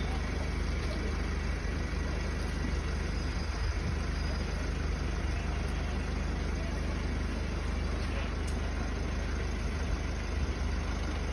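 Motorcycle engine idling steadily, a low even rumble.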